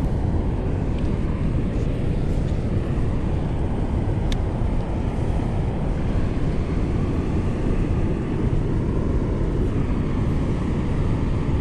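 Steady low rumble of wind buffeting the microphone, with a single sharp tick about four seconds in.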